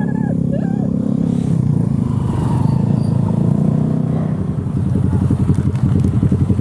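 Motorcycle and scooter engines running as a group rides. After about four and a half seconds it changes to a quick, even pulsing, like engines idling together at a stop.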